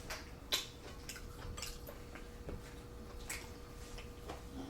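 Close-miked wet chewing and scattered mouth clicks of a person eating a mouthful of seafood boil.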